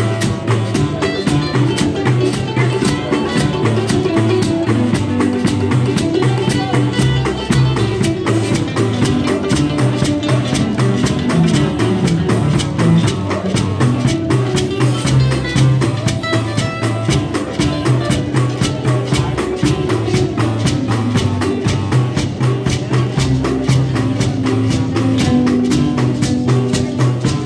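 A marimba band playing an upbeat tune on wooden marimbas of several sizes, struck with mallets in a steady, driving rhythm, with a large bass marimba sounding deep low notes under the melody.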